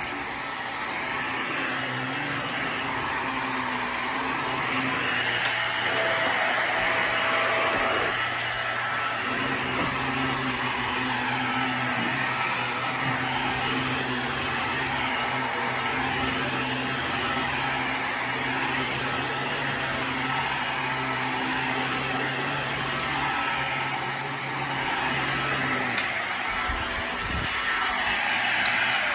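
Hoover React Powered Reach Premier Pet vacuum cleaner running steadily, with an even motor whir that keeps a constant level.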